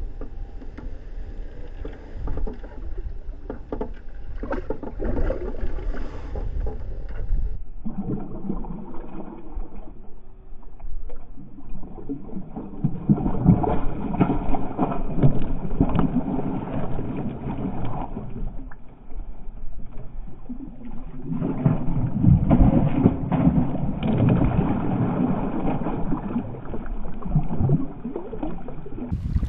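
Water sloshing with wind on the microphone, then two long stretches of splashing as a big hooked bass thrashes and jumps at the surface while being fought on the line.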